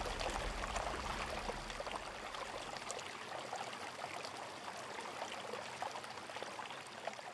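Running stream water, trickling and babbling, fading out near the end. A low held tone dies away in the first two seconds.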